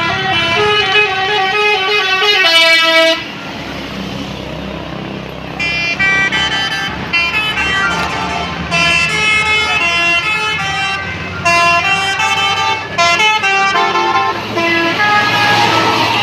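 Bus telolet horn, a Basuri multi-trumpet musical horn, playing quick tunes of stepped notes over the bus's engine. After the first tune there is a pause of about two and a half seconds, then more bursts of tunes, and a rush of noise near the end.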